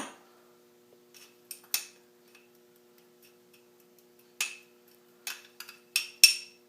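A spoon clinking against a bowl in sporadic taps while stirring, a few scattered clinks at first and a quicker run of sharper, briefly ringing ones near the end.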